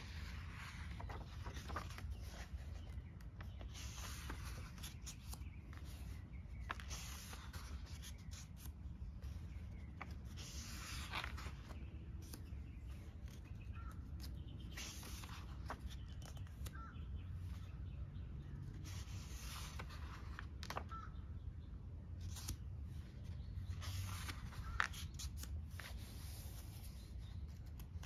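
Paper journal pages being turned and smoothed by hand, a soft rustle every few seconds, over a low steady outdoor rumble with a few faint bird chirps.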